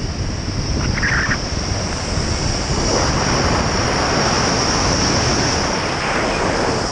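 Waterfall roaring steadily, a loud even rush of falling water, with wind buffeting the microphone.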